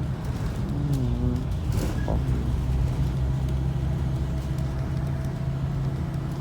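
Blue Bird Vision school bus heard from inside the cabin while driving: a steady low engine hum with road noise, and scattered rattles and knocks as it rides over a bumpy road.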